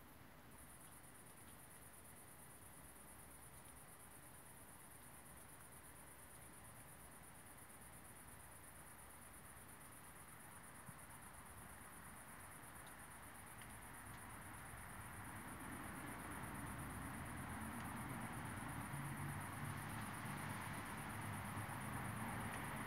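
Faint, steady high-pitched chirring of crickets. From about fifteen seconds in, a soft hiss slowly rises beneath it, and low notes appear near the end.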